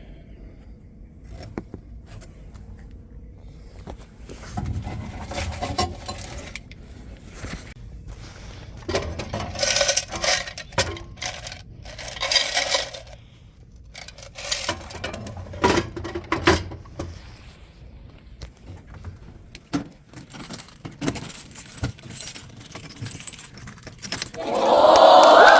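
Coins clinking and rattling in bursts as vending-machine change is handled, with scattered small metal clicks. About a second before the end, a much louder burst of applause with music starts.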